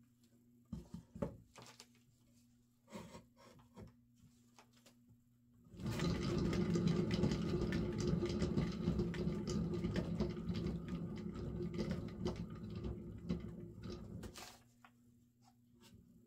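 A rickety homemade paint spinner whirls a poured canvas, starting about six seconds in with a loud rattling whir that runs for about eight seconds before winding down. Its rattle comes from its rickety build: it spins the paint out, it's just noisy. A few light knocks come before it starts.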